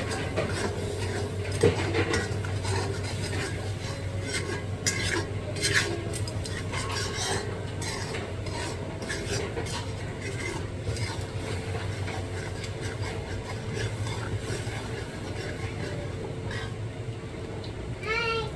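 A utensil stirring and scraping in a cooking pot of curry, with clinks against the pot, densest in the first few seconds, over a steady low hum.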